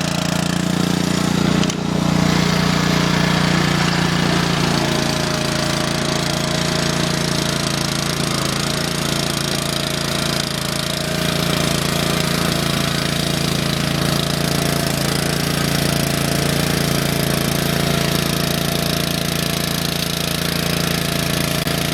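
Rotovator engine running steadily while it tills the soil, with a brief dip about two seconds in.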